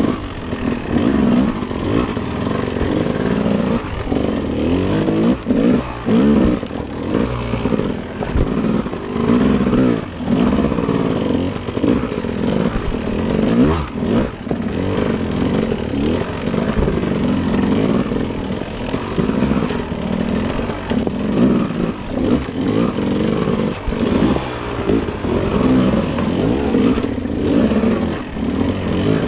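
Dirt bike engine being ridden hard, its revs rising and falling over and over as the throttle is opened and closed.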